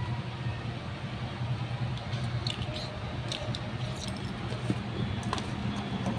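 Light clicks and rattles of loose wiring and a plastic connector being handled, scattered over a few seconds, over a steady low background rumble.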